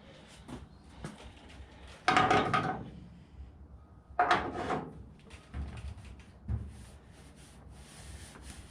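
Warped steel body panel on a 1970 Plymouth Duster popping twice with a metallic ring, about two seconds apart, between faint rubbing sounds. The pops are the panel oil-canning in and out where it has been overstretched and is being heat-shrunk.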